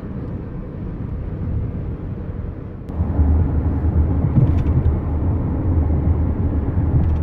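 Car road noise heard from inside the cabin while driving: a steady low rumble that steps up suddenly and gets louder about three seconds in.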